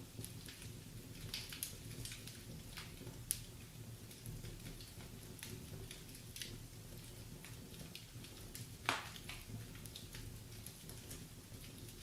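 Wood fire in a fireplace crackling, with irregular small snaps of the burning logs over a steady low rumble. Two louder pops stand out, about a third of the way in and again about three-quarters through.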